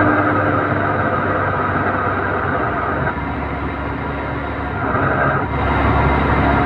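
Toyota Town Ace Noah van driving, with a steady hum from the drivetrain that comes in when the throttle is released and goes away under throttle. The hum holds for about the first three seconds, returns briefly around five seconds in, then stops as the engine takes load near the end.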